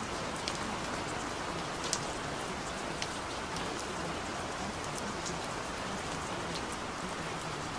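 Steady rain falling, with scattered sharp drops ticking.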